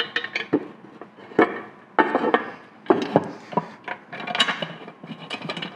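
Metal-on-metal clinks, scrapes and knocks of a screwdriver and screws as a safety cover is fitted and screwed back onto a lathe headstock, with several sharp knocks scattered through.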